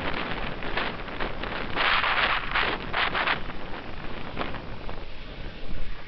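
Strong wind buffeting the microphone in uneven gusts, heaviest about two to three seconds in.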